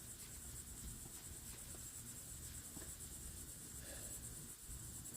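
Faint, steady high-pitched insect chirring, with a low rumble underneath.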